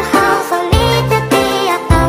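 Background music with a steady beat, a bass line and a melody on top.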